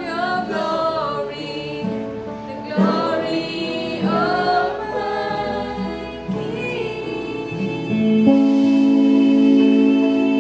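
A live worship song: women singing with keyboard and guitar accompaniment. About eight seconds in, a loud long note is held.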